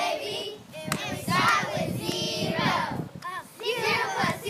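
A group of children singing together, in phrases broken by short pauses.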